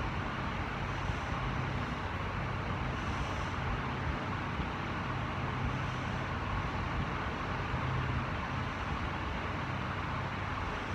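Steady background hum and hiss, with a low wavering drone underneath.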